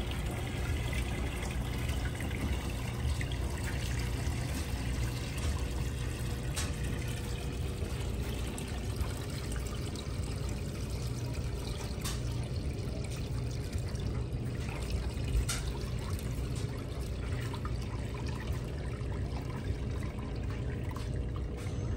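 Birch sap pouring steadily from a plastic bucket onto a microfiber cloth and trickling through it into the container beneath, a continuous pour with a few faint clicks.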